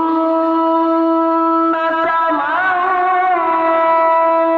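A man's voice in melodic Qur'an recitation (tilawah), holding one long high note, with a brief wavering ornament about two and a half seconds in.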